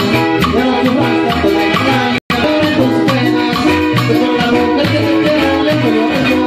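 Live band playing a Latin song, with a repeating bass line under the melody; the sound cuts out for an instant about two seconds in.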